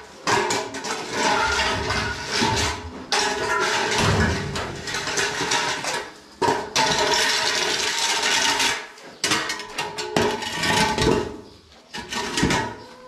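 Spilled silage being scraped and swept up off a concrete barn floor, in several long scraping strokes of two to three seconds each with short breaks between them.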